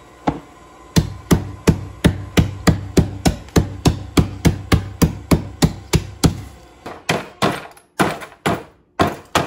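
Steady, rapid thuds, about three a second, of a glass measuring cup pounding ginger snaps in a zip-top bag on the countertop. Near the end, sharper cracking strikes as a kitchen mallet breaks hardened caramel seed brittle on a metal baking sheet.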